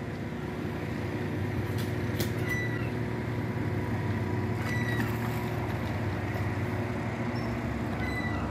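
An engine running steadily at idle, a low even hum with a few faint high chirps and clicks over it.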